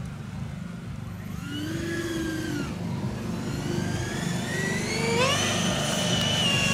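Twin electric ducted fans of a radio-controlled Freewing Eurofighter foam jet whining. The pitch swells and dips as the jet passes, then climbs sharply about five seconds in as it pulls up into a steep climb, ending in a loud, high, steady whine over a low hum.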